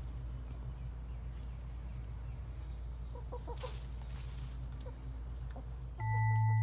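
Chickens clucking a few short times over a steady low rumble, then a loud steady electronic tone comes in near the end.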